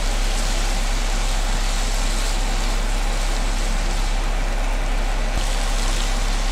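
Stir-fry of winged beans, tempeh and anchovies sizzling steadily in a frying pan as it is stirred, over a steady low hum.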